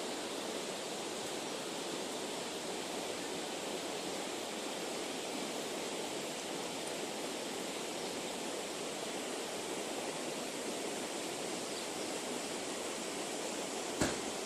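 Steady, even rushing noise of outdoor ambience, with one sharp click near the end.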